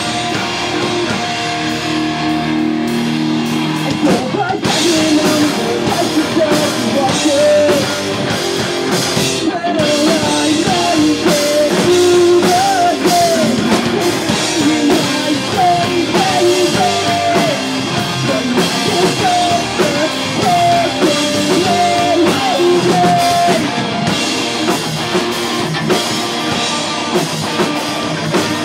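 Live pop-punk band playing a song. Electric guitars start alone, then drums and sung vocals come in about four seconds in.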